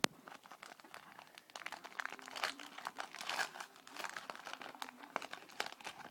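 A trading card pack wrapper crinkling and rustling as a pack is opened and the cards handled, in quick irregular crackles and clicks.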